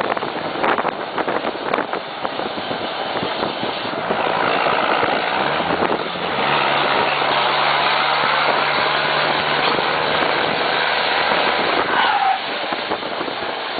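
Volkswagen Constellation truck's diesel engine running while driving. It gets louder about six seconds in and holds a steady low hum, then eases off near the end.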